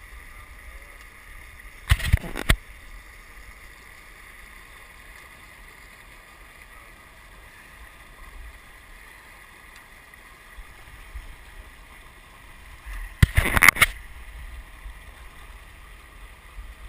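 Steady rush of river water running over shallow rapids. Two short bursts of knocking and clattering cut through it, one about two seconds in and one near the end.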